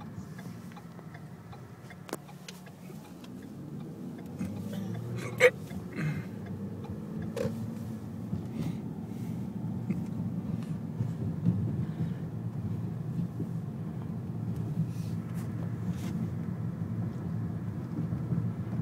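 Car cabin noise as the car pulls away from a stop and drives on: a steady low rumble of engine and tyres that grows louder a few seconds in as it gets up to speed. A few light clicks, the sharpest about five seconds in.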